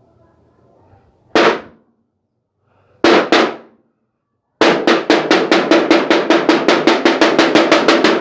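A wooden stick striking a metal can hard. There is one strike, then two quick ones, then a fast even run of about five strikes a second, each ringing briefly. It is a homemade imitation of gunfire, with single shots followed by a burst.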